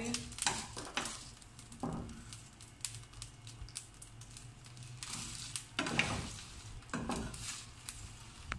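A spoon stirring and scraping whole spices (dried red chillies, cumin and coriander seeds) dry-roasting in a metal frying pan, the seeds rattling against the pan in scattered bursts. The spices are being lightly roasted until they give off their aroma.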